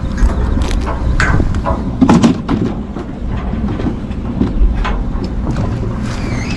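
Steady low rumble of a fishing boat's engine, with wind on the microphone and several sharp knocks and rustles from gear being handled at the rail.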